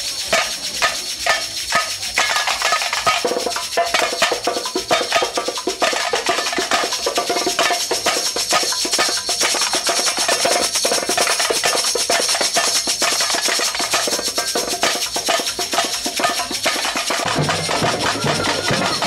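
Samba percussion band playing a dense, steady rhythm, with shakers and tambourines ringing on top. Deep drum beats come in much louder near the end.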